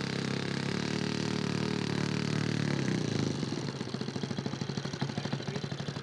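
Model airplane engine running close by, then throttled back about halfway to a slow idle with distinct, evenly spaced firing pulses.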